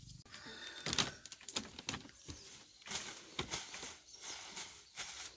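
Plastic bag crinkling and rustling as it is handled, a run of sharp, irregular crackles.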